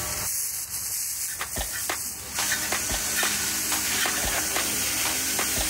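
Fire hose nozzle spraying water onto a smouldering fire bowl: a steady hissing spray.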